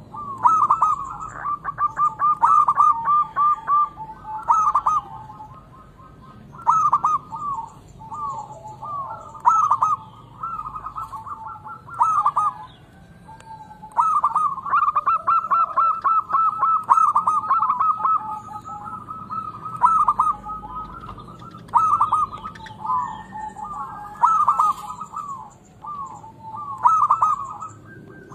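Zebra dove (perkutut) calling: quick runs of rapid staccato cooing notes, each run a second to several seconds long, separated by short pauses.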